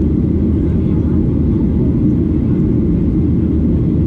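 Steady cabin noise of a Boeing 737-800 in flight: the CFM56-7B engines and airflow make an even, low rumble that does not change.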